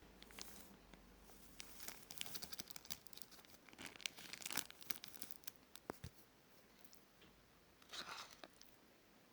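Faint crinkling and tearing handling sounds with scattered clicks, coming in irregular bursts for the first several seconds, then one short burst near the end.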